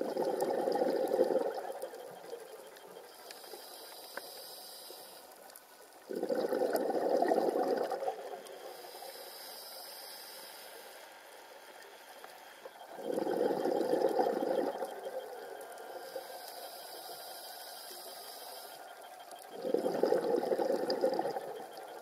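Scuba diver breathing through a regulator, heard underwater through the camera housing: a loud bubbling exhale about every six and a half seconds, four in all, with a quieter hiss of each inhale in between.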